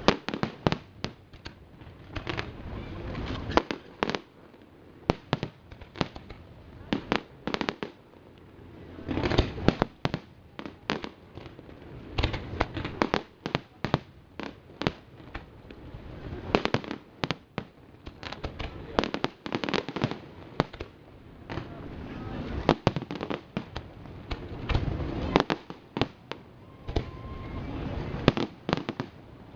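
Large fireworks display: aerial shells bursting in a string of sharp bangs, irregularly spaced and bunched into dense rapid runs several times.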